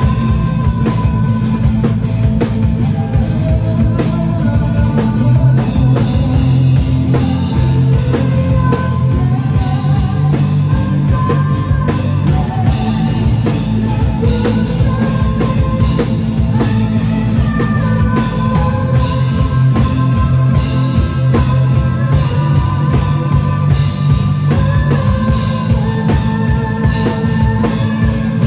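Rock band playing: drum kit, electric guitar and bass, with a melody line moving above them.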